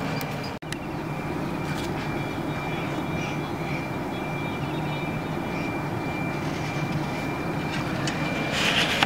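Steady low rumble and hum with a thin, steady high whine over it. It drops out briefly about half a second in, and a short brighter hiss comes near the end.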